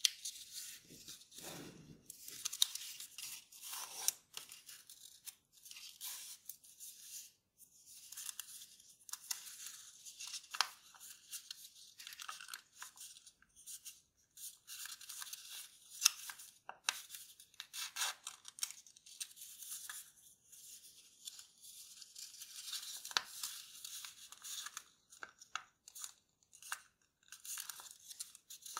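Kraft paper being folded by hand: stop-start rustling and crinkling, with a few sharp crisp snaps as folds are pressed flat.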